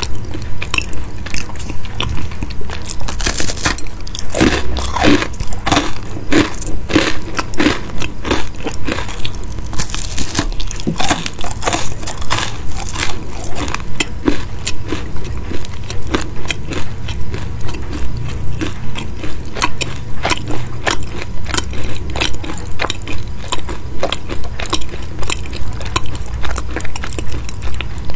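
A person chewing a crisp baked pastry, crunching steadily at about two chews a second, with the loudest, crunchiest bites about four to eight seconds in.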